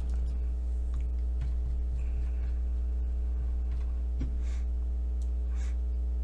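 Steady low electrical hum with a ladder of evenly spaced overtones, with a few faint clicks scattered through it.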